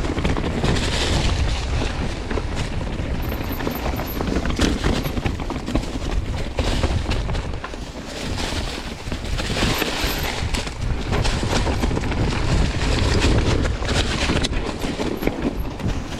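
Wind buffeting the microphone of a camera on a downhill mountain bike in motion, with many short knocks and rattles from the bike and its chain over rough ground.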